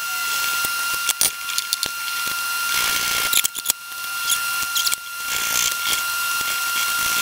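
Light clicks, scrapes and rustling from hands working grease onto the screws of an electric motor mount, with a faint steady high whine underneath.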